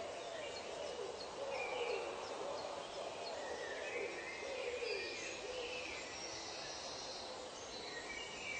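Wild birds calling in a forest soundscape. A low, wavering call rises and falls in pitch, repeated about once a second, and stops about five and a half seconds in, with higher chirps and twitters above it over a steady background hiss.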